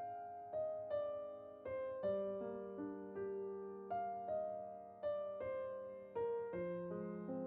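Gentle background piano music, single notes and chords struck about twice a second and left to fade.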